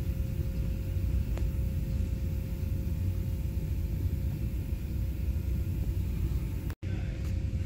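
Steady low background rumble with a faint steady hum and no distinct events; the sound cuts out for an instant about seven seconds in.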